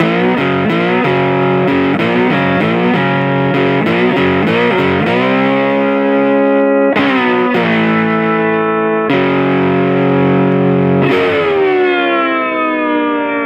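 Distorted electric guitar intro music. About five seconds of quick, chopped chord strikes give way to long held chords, and the last chord rings out and fades.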